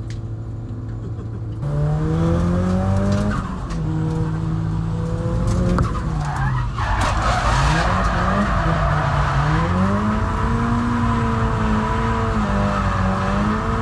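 Drift car's engine heard from inside the cabin, steady at first, then revving up about two seconds in and rising and falling as the throttle is worked, with a deep dip around six seconds. From about seven seconds on, the hiss of tyres skidding and squealing runs under the engine as the car slides.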